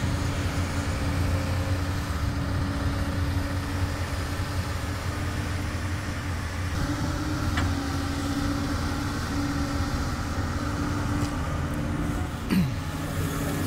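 Doosan DX200 excavator's diesel engine running steadily, its note shifting slightly about halfway through. Near the end there is a brief sharp knock, and the engine note drops lower.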